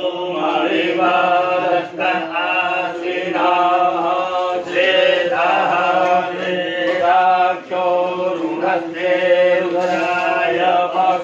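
Hindu mantra chanting: voices reciting a Sanskrit mantra in a sing-song melody, phrase after phrase, with brief breaks between phrases.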